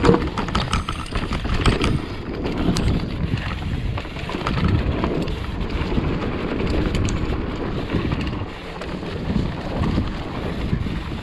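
Mountain bike descending a dirt trail: wind buffeting the microphone over a steady low rumble of tyres, with scattered sharp clicks and rattles from the bike.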